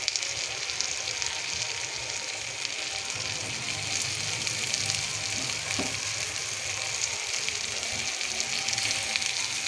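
Boiled potatoes frying in mustard oil with onion and spice masala in a kadai: a steady sizzle, with a couple of light knocks.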